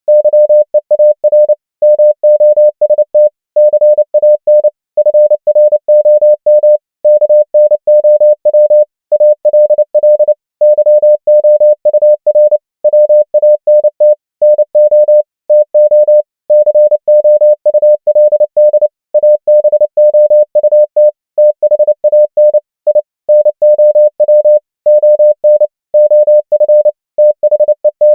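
Morse code practice tone: a single steady beep keyed on and off in rapid dots and dashes at 29 words per minute, spelling out common English words with short pauses between words.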